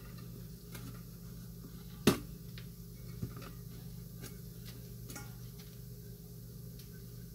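Scattered light clicks and knocks, one louder about two seconds in, from hands pushing an aroma-bead sachet into a plush teddy bear inside a stainless steel bowl, over a steady low hum.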